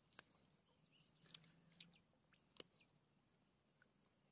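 Faint, steady high-pitched insect trill that drops out briefly now and then, with a few faint sharp clicks.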